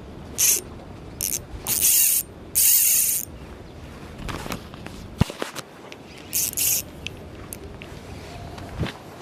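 Ryobi Ultra Power 800 spinning reel being cranked in short bursts of ratcheting, four in the first three seconds and one more past the middle, with a sharp click a little after five seconds.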